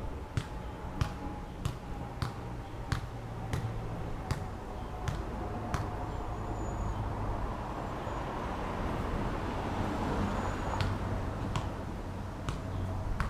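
Outdoor road-traffic noise with a vehicle passing, and a sharp knock repeating about every two-thirds of a second that pauses midway and then resumes.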